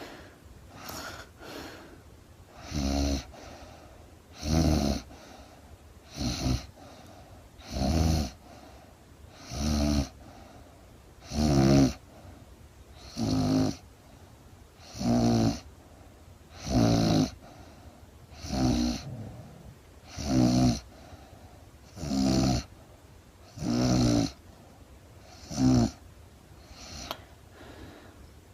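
A woman snoring in her sleep: loud, fluttering snores, one about every second and three quarters, with quieter breathing between them.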